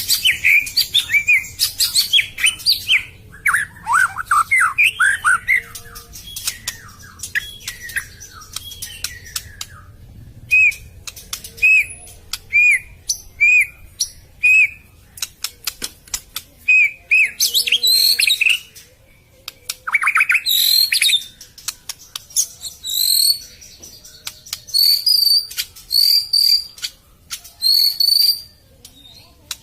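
White-rumped shama (murai batu) singing a long, varied song of whistled phrases mixed with sharp clicking notes. About a third of the way in it repeats one short whistled note several times in a row.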